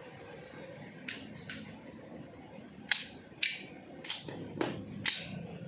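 9mm handgun firing a string of shots: two fainter cracks early, then about five sharp reports roughly half a second apart, each with a short ringing tail.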